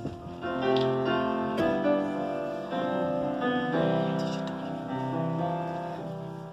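Grand piano playing the instrumental introduction to a song, a run of sustained notes and chords.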